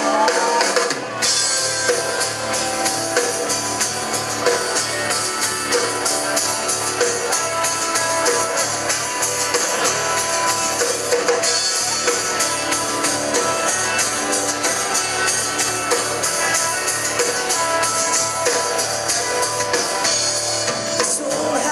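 Live country-rock band playing on drum kit, electric and acoustic guitars and bass guitar, with a steady drum beat.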